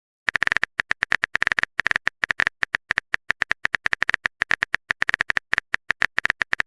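Rapid, irregular run of short clicks, about eight to ten a second: a phone keyboard typing sound effect as a chat message is being written.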